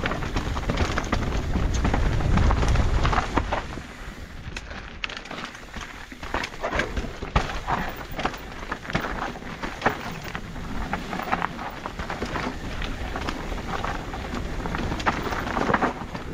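Mountain bike riding down a dirt and stone singletrack: tyres crunching over the ground, with frequent rattles and clicks from the bike. A heavy wind rumble on the microphone fills the first three seconds or so, then eases.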